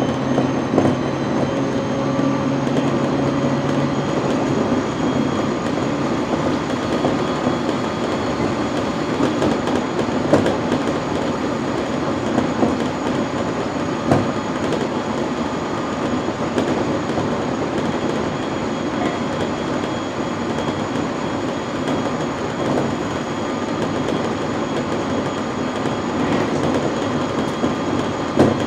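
701-series electric multiple unit running between stations, heard from its driving car: a steady rumble of wheels on rail with a few sharp rail-joint clicks. A low hum drops away about five seconds in.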